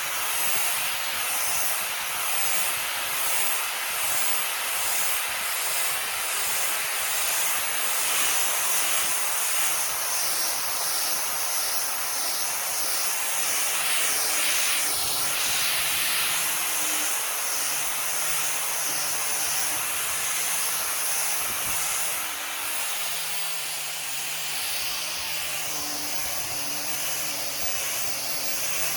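Electric orbital sander running steadily on a wooden table top, a constant high hiss.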